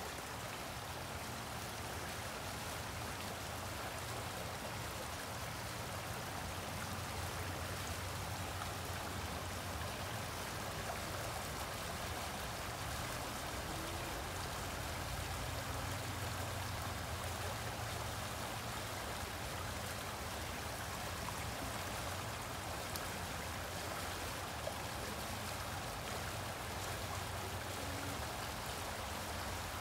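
Rain-swollen river in flood, its muddy water flowing fast and churning over submerged obstacles in a steady rushing sound.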